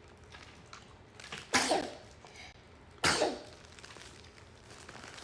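A small child sneezing twice, about a second and a half apart, each a sudden burst trailing off in a falling voice.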